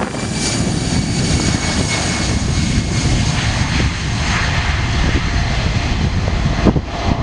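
Airbus A319 airliner's twin jet engines at takeoff thrust as it accelerates down the runway on its takeoff roll: a loud, steady rumble with a high whine on top.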